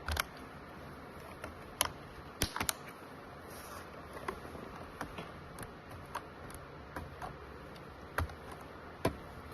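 Irregular clicks and taps of plastic parts and small tools being handled while an ultrasound machine's control panel is taken apart, with a few louder sharp clicks among lighter ticks.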